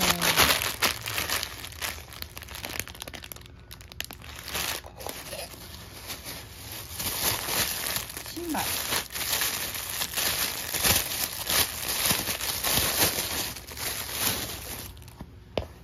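Thin clear plastic packaging bags crinkling and crackling in irregular bursts as hands squeeze and open them, dying down near the end.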